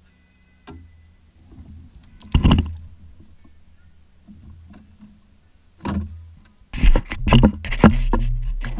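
A few knocks and bumps of gear handled in a small boat, then, from about two-thirds of the way in, a hand gripping and rubbing the camera, with loud scratching and thumping right on the microphone.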